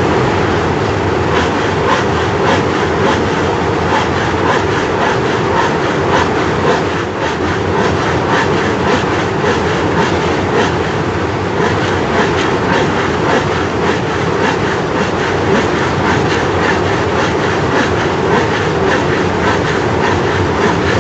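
Steady loud rumbling, rattling noise with rapid clicks, dipping slightly about seven seconds in.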